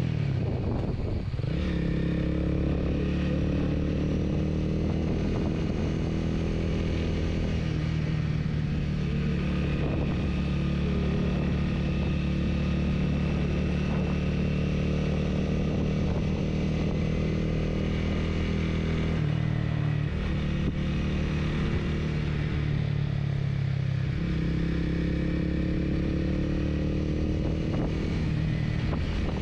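Honda Rebel 250's single-cylinder engine running steadily at cruising speed, heard from the rider's seat. Its pitch shifts a couple of times about two-thirds of the way through.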